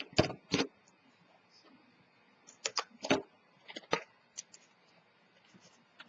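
Scattered light knocks and taps as a chipboard box and tools are handled and set down on a cutting mat. They come in small clusters: a couple at the start, a few about three seconds in, and a few more around four seconds in.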